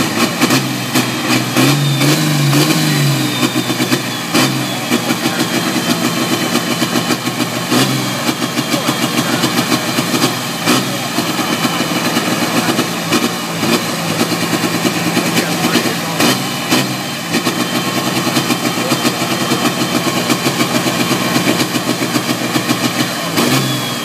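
The diesel engine of a Valtra pulling tractor idles with a fast, pulsing beat through its open exhaust stack and is revved in short bursts now and then, each blip sending up heavy smoke.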